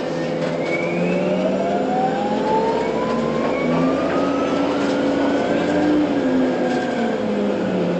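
Orion transit bus pulling away, its engine running under a high whine that climbs steadily in pitch as the bus gains speed, then levels off near the end, with a steady high tone held underneath.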